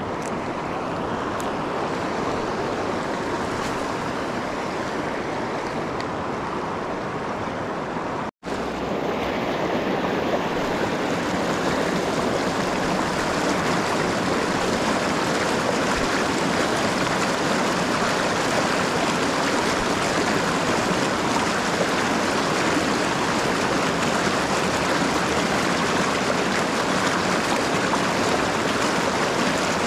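Steady rushing of river rapids, an even wash of water noise. It breaks off for an instant about eight seconds in, then carries on slightly louder.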